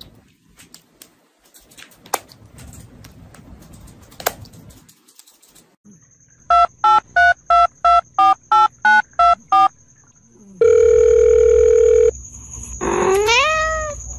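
Phone keypad beeps, about eleven short even beeps in a row, then a steady dial tone held for about a second and a half. Near the end comes a short meow that rises in pitch.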